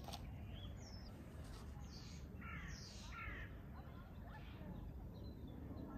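Birds calling: two harsh calls about two and a half and three seconds in, with scattered small chirps, over a steady low outdoor rumble.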